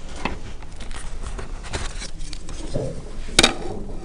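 Small handling sounds of a pen and a wooden ruler on paper: light rustles and taps, with one sharp click about three and a half seconds in.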